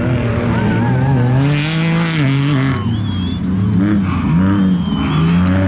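Off-road race truck engine revving up and falling back several times in quick succession as it powers through a dirt corner.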